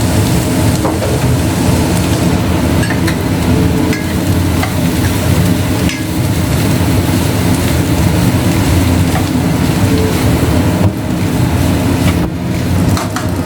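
Rice frying in a pan with onion, carrot and peas, sizzling as it is stirred, with a few faint ticks, over a loud, steady low rumble.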